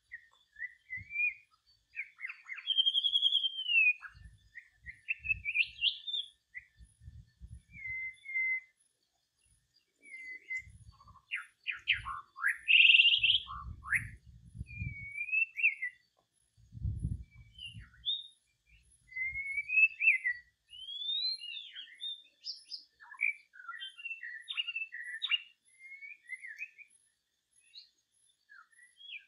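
A songbird singing a varied run of clear whistled phrases and chirps that glide up and down. Low muffled thumps come at times through the first two-thirds.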